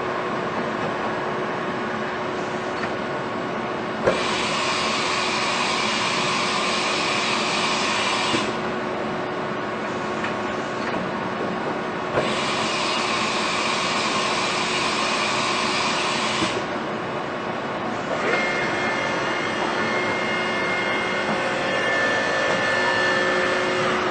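Haas VF-2SS CNC vertical machining center running under power with a steady hum. Three stretches of louder hissing machine noise each start with a click, about four, twelve and eighteen seconds in, and the last carries a few high steady whines.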